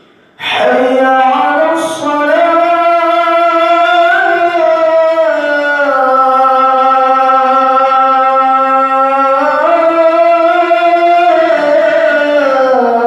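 A man's voice chanting the adhan, the Islamic call to prayer. It comes in about half a second in after a pause between phrases and draws out one long phrase, its pitch rising and falling in slow ornamented turns.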